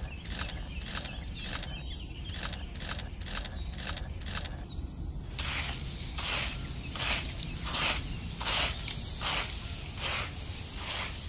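Dry sand rustling in quick, evenly spaced strokes, about three a second, as seeds are dropped into the sand furrows by hand. About five seconds in it changes to a small hand trowel scraping and pushing sand in slower hissing strokes, roughly one a second, covering the seeds.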